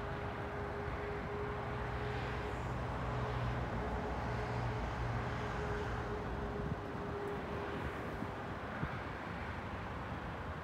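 Steady outdoor background noise with a mechanical hum and a steady whine, both cutting off about two-thirds of the way through.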